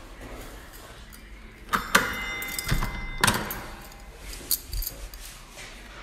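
A few sharp clicks and knocks at a wooden apartment front door. A brief metallic ring lasts about a second from about two seconds in.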